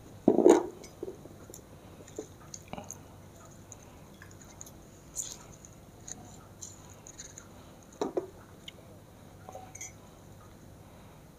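Cut limes being squeezed and handled over a glass: wet squishing with small clinks and ticks, a sharp knock just after the start and another about eight seconds in.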